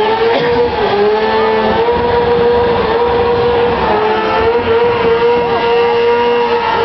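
Sport motorcycle engine held at high revs at an almost steady pitch, dipping briefly about half a second and a second in, during a burnout with the rear tyre spinning and smoking.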